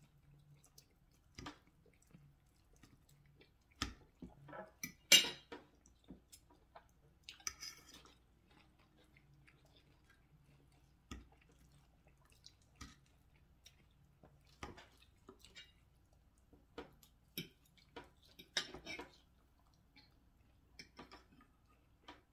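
Eating sounds: a fork scraping and tapping on a plate and mouth sounds of chewing, in scattered short clicks over a quiet room. The sharpest click comes about five seconds in.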